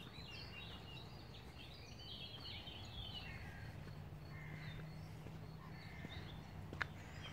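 Faint small-bird song: a run of quick high twittering chirps in the first few seconds, then a few shorter calls later, over steady low outdoor background noise.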